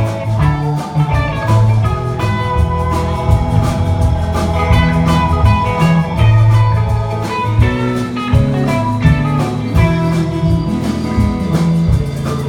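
A band playing an instrumental passage with guitar leading over bass and drums.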